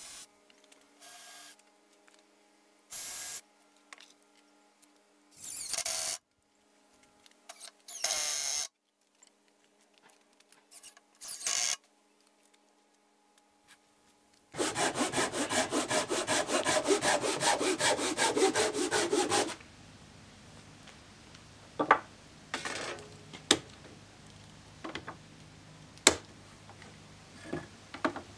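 Woodworking on a plywood box: short bursts of a cordless drill driving screws. Then about five seconds of loud, steady, rhythmic rasping on wood, and a few sharp knocks of tools and wood near the end.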